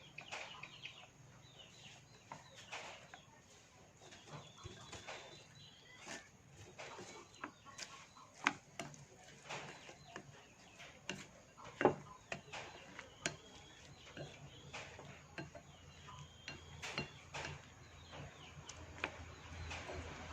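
Sporadic light clicks and taps of a utensil against a bowl as banana blossom is mixed into a thick frying batter, with two sharper knocks near the middle. Faint bird calls sound in the background.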